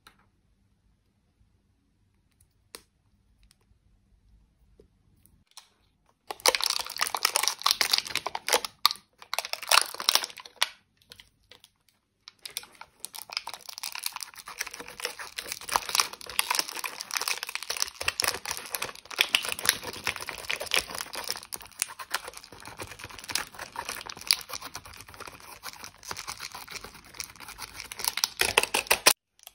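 Pressed eyeshadow scraped and crumbled out of a plastic toy palette's pans with a pointed tool: dense, crisp scratching and crackling. It starts about six seconds in after near quiet with a few faint clicks, and pauses briefly around eleven seconds.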